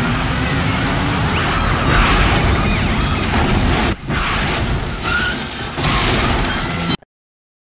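Film soundtrack of a car smashing through a wall: loud crashing, breaking glass and debris over background music, stopping abruptly near the end.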